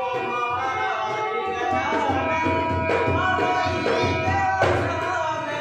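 Harmonium and dholak playing together: the harmonium sustains held reed chords while the hand-played dholak keeps a steady rhythm, with a man singing over them.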